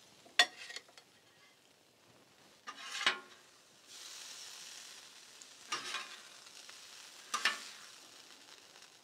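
Metal spatulas scraping and clacking on a hot steel flat-top griddle as cooked asparagus is lifted off onto a plate: a sharp clack about half a second in, then short scrapes three more times, with a faint sizzle from the griddle in between.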